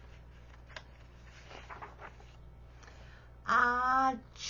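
A woman's voice acting out a big pretend sneeze. About three and a half seconds in there is a loud, drawn-out "ah-", and the breathy start of the "choo" comes right at the end. Before that there are only a few faint rustles.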